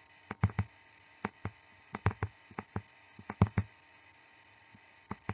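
A stylus tapping and clicking on a tablet as figures are hand-written: irregular sharp clicks, often in quick pairs, with a pause of about a second and a half near the end.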